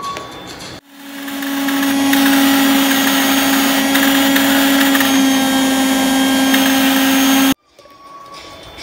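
Electric mixer-grinder grinding green mango, coconut, shallots and green chillies into a coarse chutney in its steel jar. The motor starts about a second in, winds up over a second to a loud, steady whine, and stops abruptly near the end.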